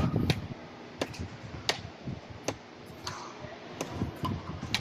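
Badminton rackets striking a shuttlecock in a rally: about six sharp, short hits, roughly one a second.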